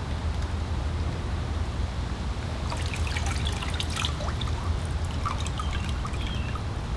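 Water splashing and dripping back into a pot as a small submersible fountain pump is lifted out of it by hand, with a dense run of drips between about three and four seconds in, over a steady low rumble.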